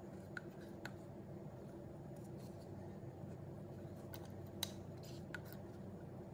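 Spatula scraping wet pepper paste out of a metal bowl into a glass jar: a few light clicks and scrapes, the sharpest about four and a half seconds in, over a steady low hum.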